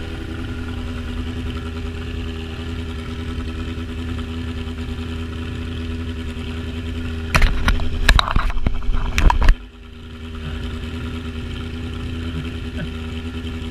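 Motorcycle engine idling steadily. Loud irregular knocks and crackles break in for about two seconds past the middle, then the level dips briefly before the steady idle returns.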